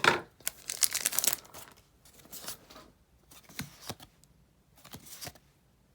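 Dragon Ball Z trading card booster pack being handled: a loud crinkling, tearing rustle of the pack wrapper for about the first second and a half, then quieter short rustles as cards slide against each other while being flipped through.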